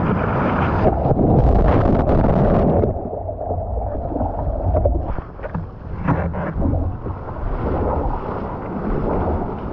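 Seawater sloshing and splashing around a surfboard as whitewater washes past, with wind buffeting the microphone. The rush is loudest for about the first three seconds, then eases a little.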